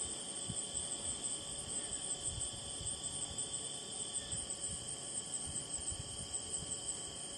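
Steady late-summer chorus of crickets and other insects: several high-pitched trills at different pitches, layered and unbroken.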